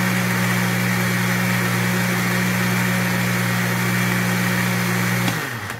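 Electric countertop blender running steadily as it blends a creamy garlic and yogurt sauce. It is switched off near the end, and the motor winds down in a falling pitch.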